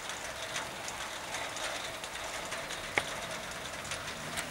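Sturmey-Archer three-speed rear hub of a 1946 Raleigh bicycle ticking as the wheel spins freely, its pawls clicking at about two to three ticks a second. One sharper click comes about three seconds in.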